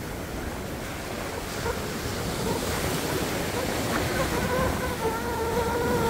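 Sea waves breaking and washing ashore, the surge building about a couple of seconds in. In the second half a faint, steady pitched sound with a few overtones sits above the surf.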